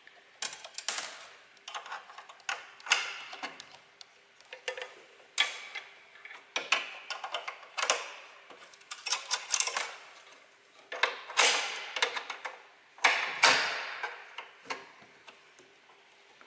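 Hand tools and metal parts clicking and clattering during disassembly, in short bursts of sharp ticks about every second or so.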